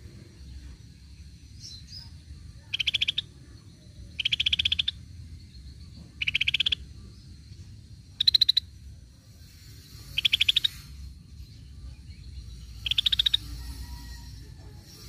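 Scaly-breasted bulbul calling: six short, rapid buzzy trills, each about half a second long, repeated roughly every two seconds.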